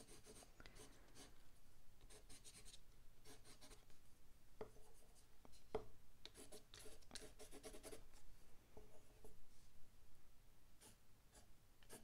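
Faint, quick scratching of a sharpened wooden paintbrush handle on watercolour paper, in clusters of short strokes with a few single sharp ticks, as texture is scratched into a painted tree.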